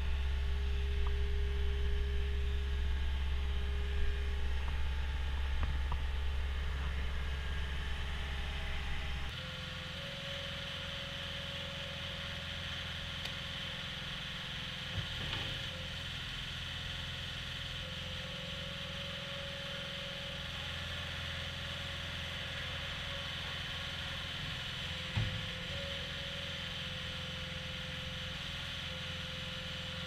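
Caterpillar 242D skid steer loader's diesel engine running steadily: first a strong low hum, then, after an abrupt change about nine seconds in, a quieter, steady running sound with a higher tone as the machine raises its bucket and drives. Two faint knocks come about midway and near the end.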